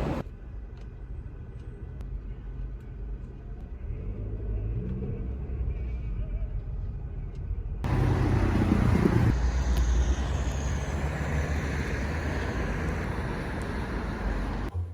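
Low, steady rumble of road traffic or a moving car. It changes abruptly about eight seconds in, becoming louder with more hiss.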